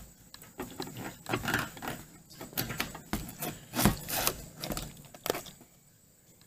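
Fuel pump and sending-unit assembly of a 1990 C4 Corvette being worked up out of the fuel tank: irregular scrapes, rubs and clunks of the pump and its metal fuel lines against the tank opening. The loudest knock comes a little before four seconds in, and it goes quiet for the last second.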